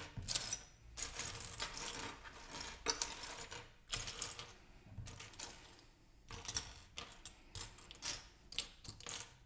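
Loose plastic LEGO bricks clattering and clicking against each other as a hand rummages through the pieces, in quick irregular clicks.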